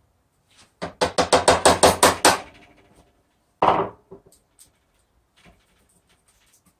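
Rapid run of about a dozen sharp mallet taps, roughly seven a second, on wood, then a single heavier knock about a second later: hand tools working to free a glued half-round dowel from the groove of a wooden jig.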